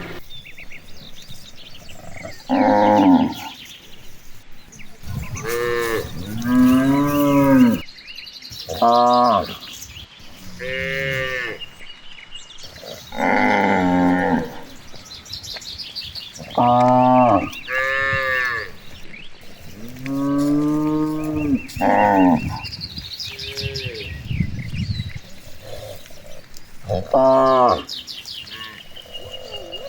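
Cows mooing repeatedly: about a dozen separate moos, each about a second long, some falling away at the end.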